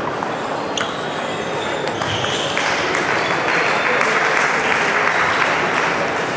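Busy table tennis hall ambience: celluloid-style ping-pong balls clicking off tables and bats on many tables at once, over a steady babble of background voices.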